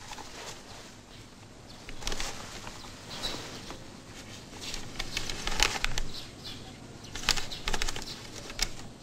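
Paper pages of a bound ledger rustling and flicking as it is leafed through, in several short bursts, with a few faint bird chirps.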